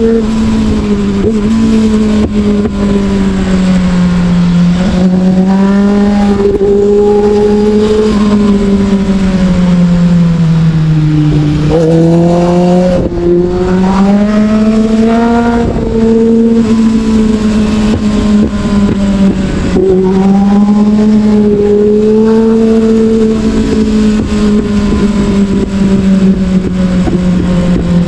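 Sportbike engine heard from on board, its note falling and rising with the throttle. It sinks lowest about eleven seconds in, then climbs again in a few quick rises. Wind rushes over the microphone.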